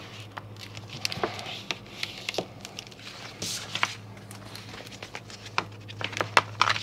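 Plastic-backed transfer paper crinkling and crackling as gloved hands fold it and open it out, in a string of irregular sharp crackles. A low steady hum runs underneath.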